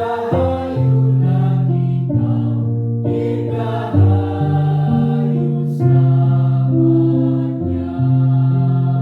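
Primary-school children's choir singing slow, long held notes over instrumental accompaniment.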